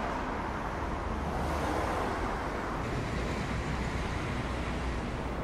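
Steady outdoor traffic noise from a city street, an even rush of passing vehicles with no single event standing out.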